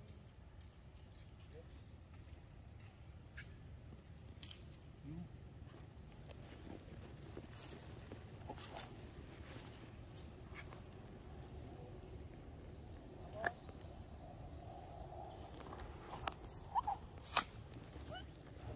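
Outdoor ambience: a bird repeating quick, high, falling chirps through the first half over a low steady rumble, with a handful of sharp clicks and taps, the loudest near the end.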